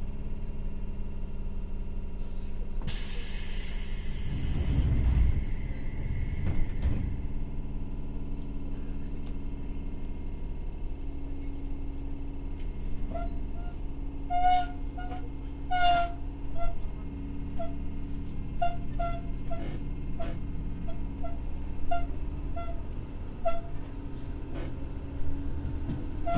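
Seibu 301-series resistance-controlled electric train running, heard from inside a motor car: a steady hum of motors and running gear. About three seconds in there is a burst of hiss with a deep rumble, and from about halfway on a regular run of short clicks from the wheels and track.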